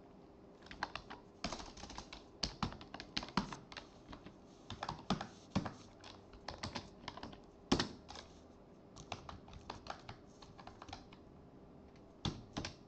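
Computer keyboard being typed on: quick irregular key clicks in short runs with brief pauses, going quiet for about a second near the end before a few more keys.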